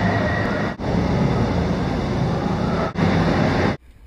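Loud wind buffeting the camera's microphone, a dense rumbling rush that breaks off sharply twice and falls away to a faint hiss near the end.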